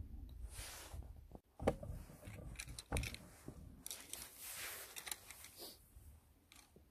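Light rustling and scraping with a few sharp clicks: close handling noise, with nylon jacket fabric brushing near the microphone.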